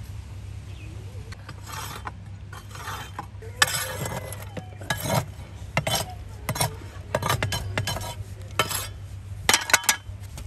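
Metal utensil scraping and clinking against a cooking pot in a series of about a dozen short, irregular strokes, over a steady low hum.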